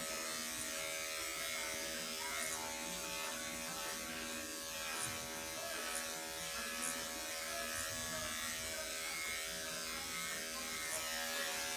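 Electric dog grooming clipper, fitted with a 30 blade and a 7/8 guide comb, humming steadily as it clips a small dog's body coat.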